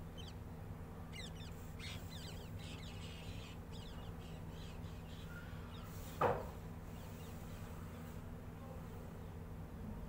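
A steady low buzzing hum with small birds chirping high over it, and one short loud sound about six seconds in.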